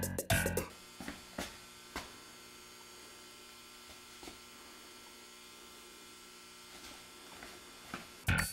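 Steady electrical mains hum with a few faint clicks. Music cuts off just under a second in and starts again near the end.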